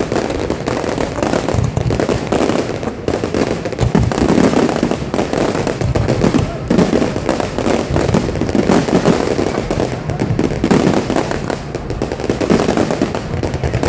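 Fireworks display: many shells bursting at once in a dense, unbroken run of bangs and crackling.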